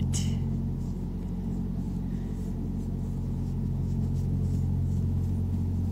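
A steady low hum, with faint soft rustles of cotton yarn being worked with a crochet hook.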